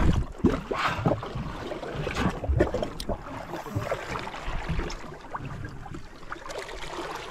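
Water splashing and lapping against the hull of a small boat at sea, with wind buffeting the microphone, strongest in the first few seconds.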